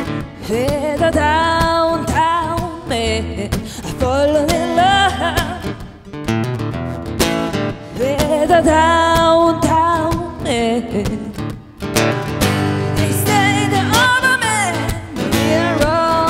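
Live blues band music: guitar and bass, with a lead melody that bends and wavers in phrases roughly every four seconds.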